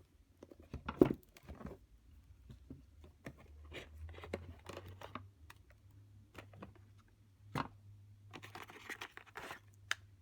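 Tarot deck packaging being handled and torn open: scattered crinkling, tapping and tearing, with a sharp tap about a second in and a longer rustle near the end.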